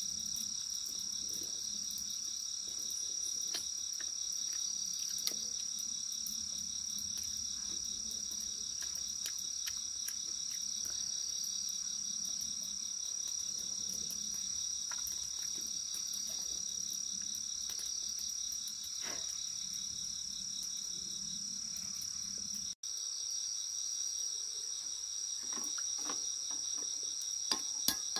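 Steady chorus of insects, a continuous high shrill, with faint scattered ticks and a few sharp clicks near the end.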